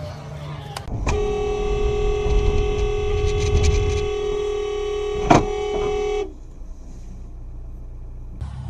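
A car horn held for about five seconds on one steady note, over low engine and road rumble. A sharp knock sounds near the end of the honk.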